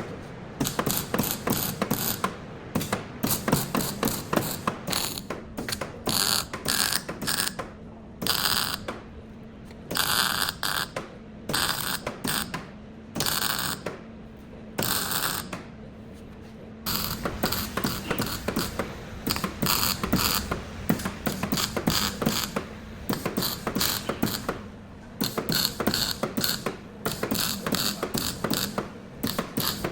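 Rapid mechanical clicking from hand tools at work on a car body, coming in repeated bursts with short pauses between them.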